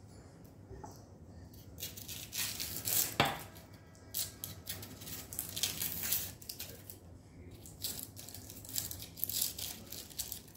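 Food being prepared with a knife at a wooden chopping board: irregular scraping, rustling and papery tearing, with one sharp knock about three seconds in.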